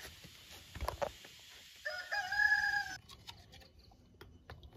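A rooster crows once, about two seconds in, in a slightly rising call that cuts off abruptly after about a second. A few faint knocks come before it.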